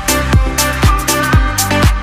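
Electronic dance background music with a steady kick drum, about two beats a second.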